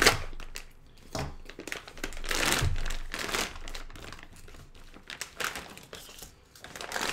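Filament packaging being opened by hand: crinkling and rustling with scattered sharp clicks, and a longer, louder stretch of rustling about two to three seconds in.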